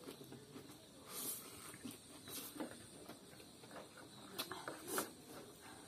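Spicy instant noodles being slurped off chopsticks and chewed: several short wet slurps, the loudest about five seconds in.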